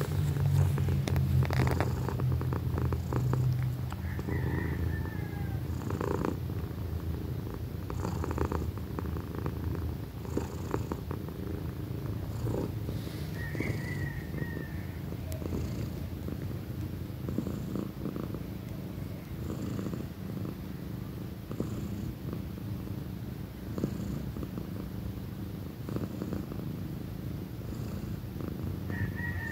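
A young cat purring loudly and steadily, close to the microphone, with occasional soft rustling of fur and bedding.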